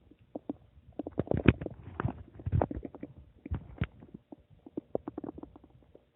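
Human stomach gurgling and rumbling: runs of quick bubbling clicks and gurgles, loudest in the first few seconds and tapering off into sparse gurgles near the end.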